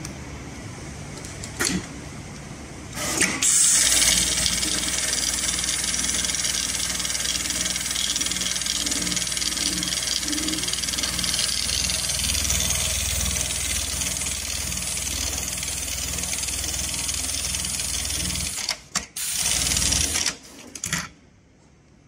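HighTex MLK500-2516ECO heavy-duty programmable pattern sewing machine stitching a zigzag pattern into thick webbing, running steadily for about fifteen seconds. A couple of sharp clicks come before the run starts, and a short burst of noise and clicks comes near the end as it stops.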